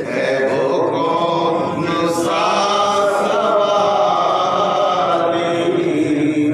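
Men singing a manqabat, a Sufi devotional song, in a chant-like style with long held notes.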